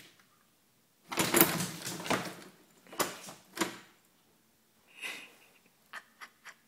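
Small pug-cross puppy huffing and snorting through its nose in short puffs: a long one about a second in, two short ones around three seconds and another near five, then three quick ticks near the end.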